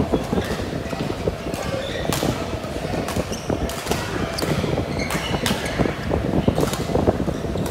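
Badminton rally: sharp racket strikes on the shuttlecock, roughly one a second, over a steady background rumble.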